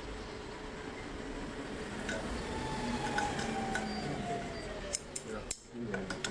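Scattered light clinks and knocks of things being handled, over a steady background, with a faint tone that slowly falls in pitch in the middle.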